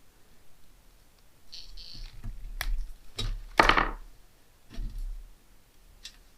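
Scattered clicks and knocks of small tools and parts being handled on a workbench, with a brief hiss about two seconds in and a louder short ringing clatter a little past halfway.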